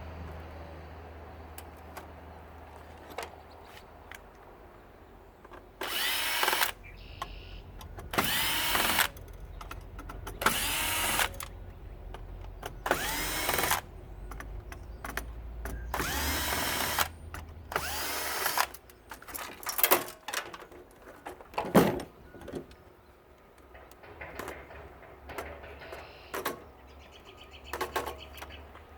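Power drill spinning up in six short runs, each rising in pitch and then holding, as screws are driven out of the water heater's casing. Scattered knocks and clicks of parts being handled follow.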